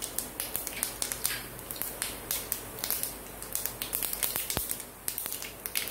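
Urad dal and cumin seeds frying in hot oil for a tempering, sizzling with frequent sharp crackles and pops.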